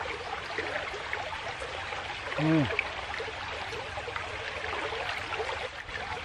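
Steady rushing of a fast-flowing, flood-swollen stream running over rocks. About two and a half seconds in comes a brief low sound from a person's voice.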